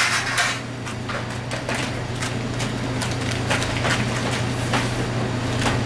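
Irregular sharp knocks and clicks, two or three a second, over a steady low hum, typical of hands and tools at work in a confectionery workshop.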